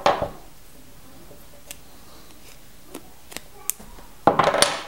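A few light clicks and taps of tools and a roll of electrical tape being handled on a wooden tabletop, then a louder noisy scuff lasting about half a second near the end.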